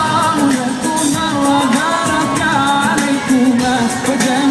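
Live music: a sung melody over a band with a steady percussion beat.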